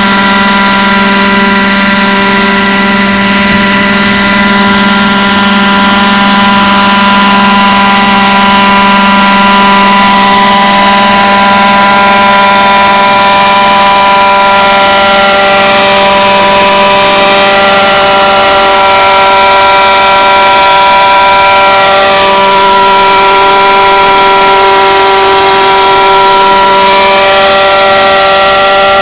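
Large-scale Vario Schweizer 300 radio-controlled model helicopter running with its rotors spinning: a loud, steady engine-and-rotor whine. It lifts off into a low hover near the end.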